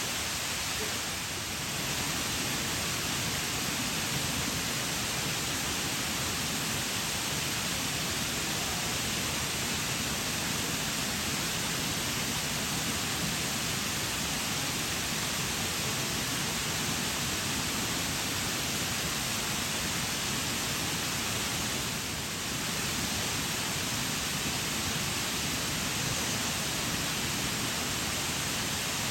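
Waterfall pouring steadily: an even, unbroken rush of falling water, dipping slightly twice.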